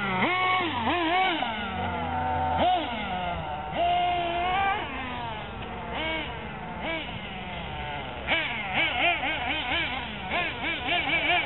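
Several radio-controlled off-road cars racing, their motors whining and rising and falling in pitch as the throttles are worked, with overlapping revs. Near the end the revs come in quick blips, about three a second.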